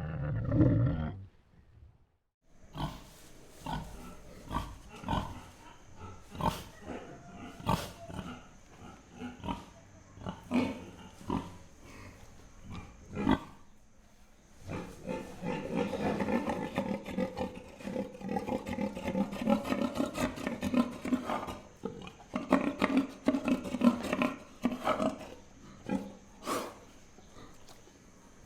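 Pigs grunting: a loud pitched call at the start that cuts off, a short silence, then a run of short grunts roughly one or two a second. About halfway through, the grunting becomes a denser, more continuous chorus for several seconds before breaking back into separate grunts.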